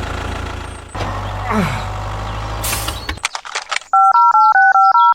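A steady low engine rumble for about three seconds, which cuts off abruptly. About a second later comes a loud electronic ringtone of alternating two- and three-note beeps.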